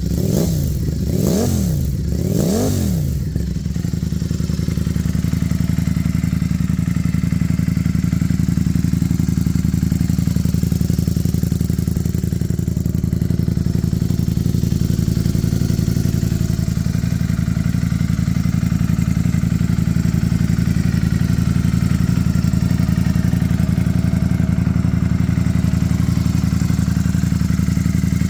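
Ducati Streetfighter V4S's 1103 cc V4 engine through a Termignoni slip-on exhaust, revved three times in quick succession, then settling into a steady idle after about three seconds.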